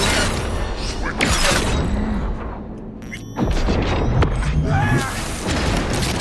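Video game combat audio: booms and impacts over a background music score, with game voices in the mix.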